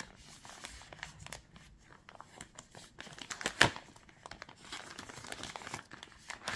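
Frosted plastic bag crinkling and rustling as it is handled and opened around the drone, a stream of small crackles with a louder one about three and a half seconds in.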